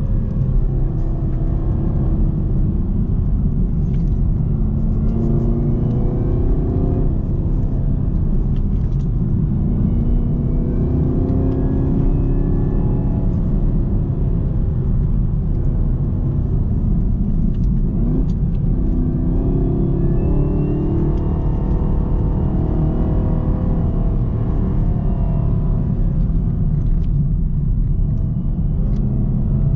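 2018 Camaro ZL1's supercharged 6.2-litre V8 driving under changing throttle, its pitch rising and falling several times. A high supercharger whine climbs with it over a steady low road rumble.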